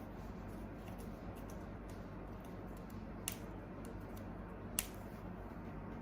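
Quiet handling of a gachapon toy's packaging, with two sharp clicks about three and five seconds in, over a steady low hum.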